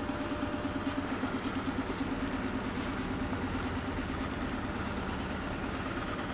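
Steady mechanical drone of idling machinery, like an engine running at idle, with a fast, even throb.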